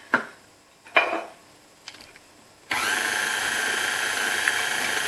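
Two short clinks, then about two and a half seconds in a KitchenAid Artisan stand mixer is switched on and its motor runs with a steady whirr, the beater turning through cake batter.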